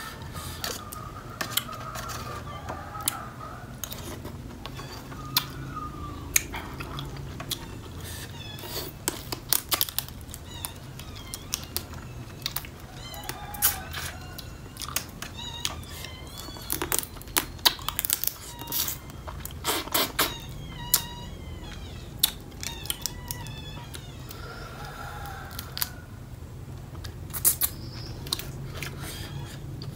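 Close-up eating sounds of spicy blue crab papaya salad: wet lip smacks, sucking and chewing on crab pieces, and sharp clicks, scattered irregularly.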